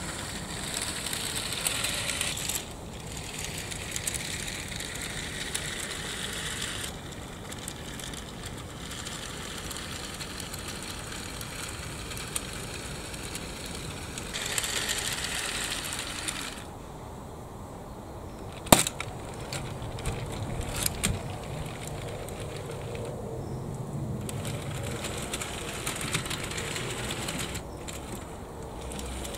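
Small 6 V geared DC motors whirring as they drive a toy excavator's plastic tracks up a wooden plank ramp. The whir starts and stops in stretches, and there is one sharp click a little past halfway, with a few lighter clicks after it.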